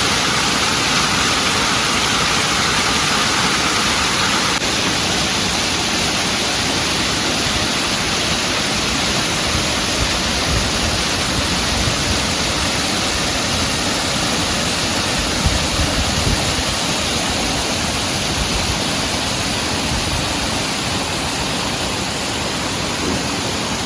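Steady rush of a small waterfall pouring over rocks, a loud even roar of water with a slight change in its sound about four seconds in.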